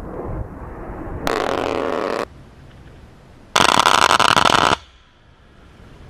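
Two bursts of an A-10's GAU-8 Avenger 30 mm rotary cannon firing, each about a second long with a dense buzzing sound; the second, about three and a half seconds in, is louder. A low rumble of jet noise comes before the first burst.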